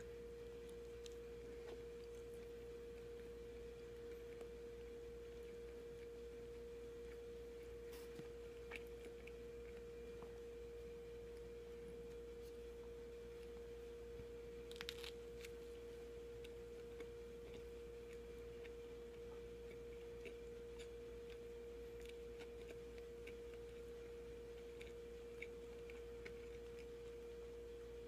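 Faint eating sounds of someone biting and chewing a soft-bread sandwich: a few small clicks and crackles, with the clearest about 8 and 15 seconds in and near the end. Under them runs a steady single-pitched hum.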